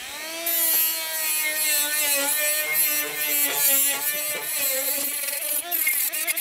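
Worx WX741 brushless mini angle grinder with an 80-grit flap disc spinning up to full speed, then grinding rust off a steel wiper arm back to bare metal. Its whine rises over the first second, then holds, wavering and dipping as the disc is pressed onto the metal.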